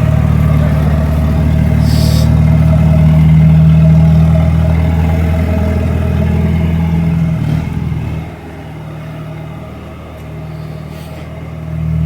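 Forklift engine running steadily under a heavy load, with a short hiss about two seconds in. The engine drops to a much quieter level about eight seconds in and picks up again near the end.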